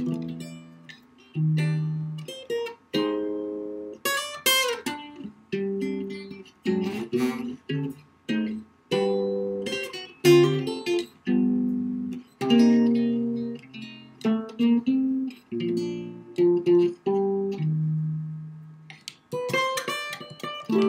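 Solo jazz guitar played slowly: chords of several notes struck one after another and left to ring out and fade, with a few quick runs between them.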